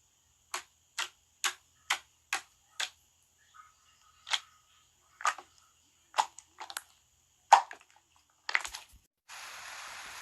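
A series of sharp clicks or taps: six evenly spaced, about two a second, then several more at uneven gaps. Near the end a steady hiss sets in.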